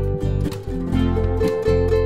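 Background music with plucked string notes over a steady low bass.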